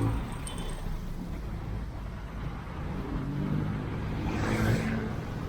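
Road traffic: a motor vehicle's engine running, growing louder with a slight rise in pitch about three seconds in, and a short hiss about four and a half seconds in.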